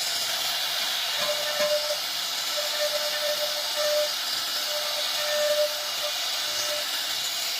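CNC router cutting a 2D design into a wooden bed panel: a steady hissing cutting noise, with a mid-pitched tone that comes and goes as the spindle works.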